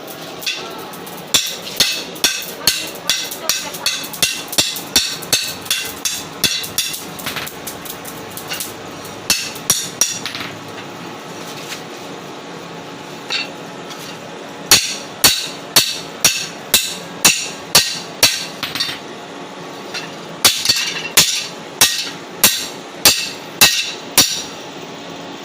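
Mechanical blacksmith's power hammer striking metal about twice a second, in several runs with short pauses between, over a steady machine hum.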